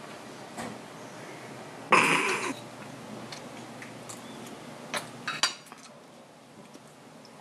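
A person eating at a table: one short, loud mouth noise about two seconds in, then a few sharp clicks of cutlery against a plate of spaghetti.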